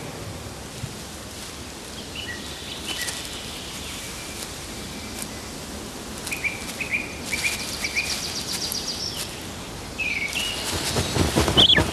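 Forest ambience: a steady background hiss with scattered chirps of small birds, including a fast trill about halfway through. A louder rustling swell rises near the end.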